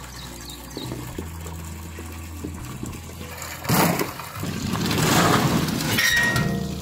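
Peeled apples tipped from a wire strainer into a large steel pot of water under a running hose, with a sudden loud splash just before four seconds in and more splashing and pouring water through the second half. A steady low hum runs underneath.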